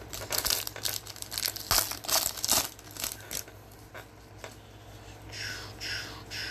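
Foil wrapper of a hockey card pack being torn open and crinkled, a quick run of sharp crackles, then a few softer swishes near the end.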